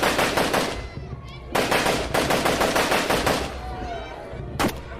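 Cricket crowd applauding at the close of a session: two long runs of rapid, crackling claps with a short lull between them, then a single sharp crack near the end.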